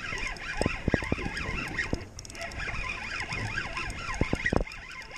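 Spinning reel being cranked to bring in a hooked fish: a whirring, warbling whine from the reel's gears that rises and falls with the turning handle. There are a few low thumps, about one second in and again near the end.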